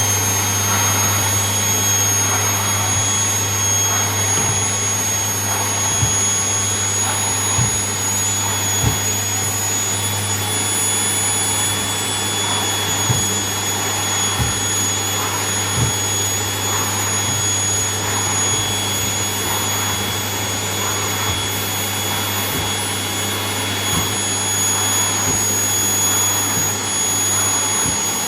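Vacuum cleaner running steadily, a constant motor whine over a low hum, with occasional light knocks.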